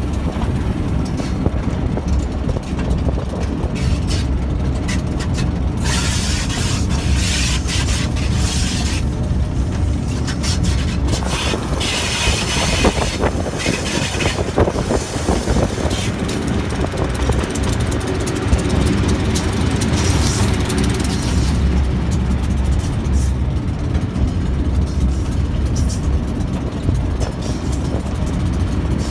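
RGE-20 diesel locomotive running steadily, heard from its cab, with the rumble of wheels on the track. Bursts of high hissing noise come and go, the longest around the middle.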